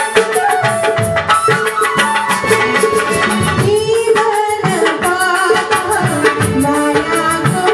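Live Nepali folk song: a woman sings into a microphone over a band with a steady hand-drum beat.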